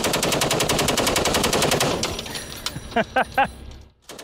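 M240B 7.62 mm belt-fed machine gun firing a long burst of rapid, evenly spaced shots that stops about two seconds in. Three short, sharp sounds follow about three seconds in, and a few more shots come near the end.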